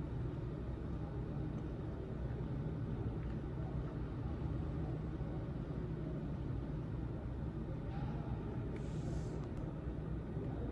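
Steady low background rumble and hum, with a brief faint hiss about nine seconds in.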